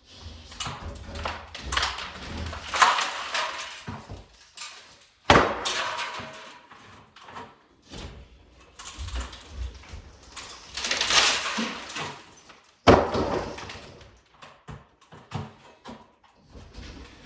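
Demolition and clean-up work: materials being dragged, scraped and shifted, with two sharp loud bangs, about five seconds in and again about thirteen seconds in.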